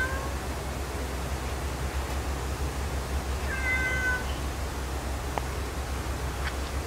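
A cat meowing: the tail of one call right at the start and a second, longer call about three and a half seconds in, over a steady low hum.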